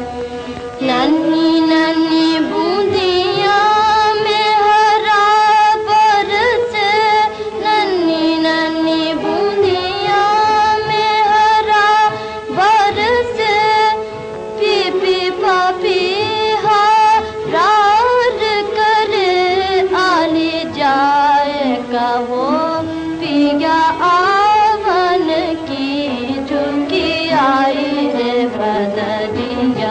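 Music from a 1930s Hindi film song, heard between its sung verses: a single melody of long, wavering held notes and sliding pitches over accompaniment, with no words.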